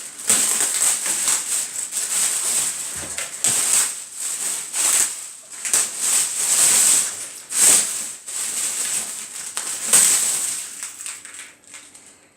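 Packaging being pulled and handled while unwrapping a new welding machine: irregular rustling and crinkling bursts, one after another, fading out near the end.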